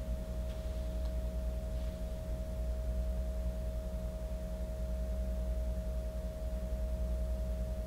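PC cooling fan spinning steadily in open air: a constant whine over a low hum, with no change in speed.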